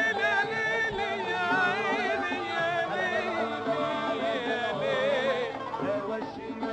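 Arabic traditional music: an ornamented melody that wavers in pitch, over steadier lower tones.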